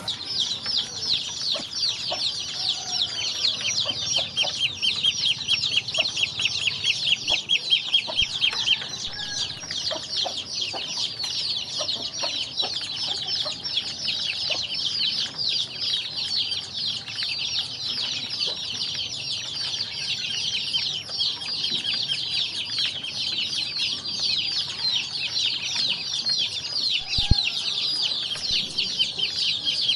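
A brood of ducklings peeping continuously, many high-pitched calls overlapping. A single brief knock comes near the end.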